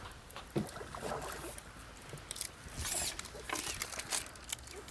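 A hooked bream splashing at the water's surface while a landing net is slid into the water beneath it. The splashes and drips come irregularly and are loudest about three seconds in.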